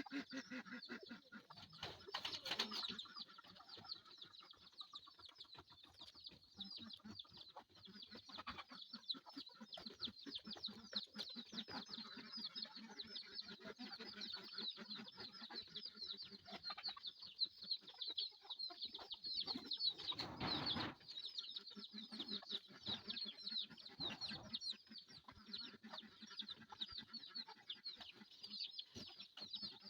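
Flock of hill chickens clucking, over a steady dense chorus of short high-pitched chirps. A brief louder rustling burst comes about twenty seconds in.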